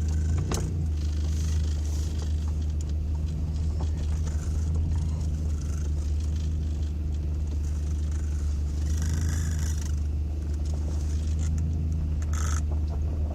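Toyota pickup's engine and drivetrain running steadily in four-wheel-drive low range, heard from inside the cab as a continuous low drone, with a couple of brief rustles near the end.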